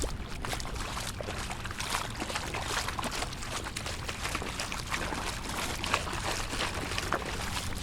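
Shallow floodwater pouring and splashing, with many small irregular splashes over a steady rush of water.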